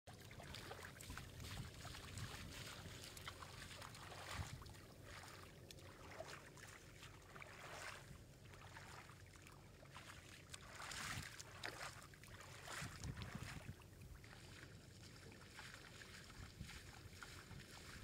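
Fish thrashing in a shallow, muddy trickle of water, making faint, irregular splashes and sloshing, with a stronger flurry of splashing about two-thirds of the way through.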